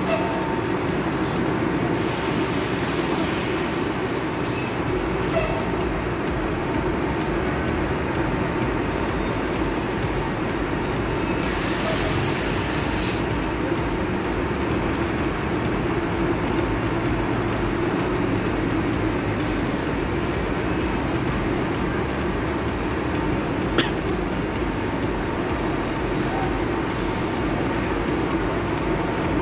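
Diesel engine of a Marcopolo Paradiso G7 double-decker coach running steadily as the bus manoeuvres at low speed. A single short click about 24 seconds in.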